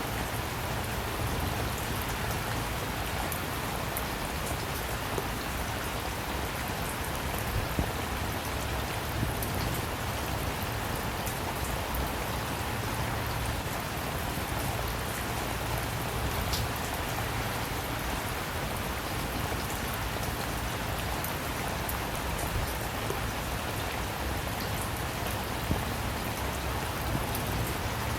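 Steady rain falling, with scattered individual drops ticking sharply on a surface.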